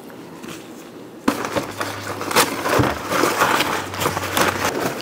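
Grease-soaked butcher paper crinkling and rustling loudly as a smoked beef flat is unwrapped, starting with a sharp crackle about a second in after a quieter start.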